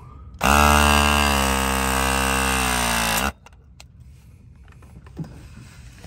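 RLS crimping tool's motor running through one crimp on a 3/4-inch copper press fitting: a loud whine that dips slightly in pitch at the start, then holds steady for about three seconds and cuts off sharply as the crimp completes.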